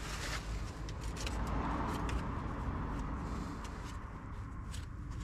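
Rubbing and handling noise from wiping around a tractor's oil filter seat with paper towel, with a few small clicks, over a low steady rumble.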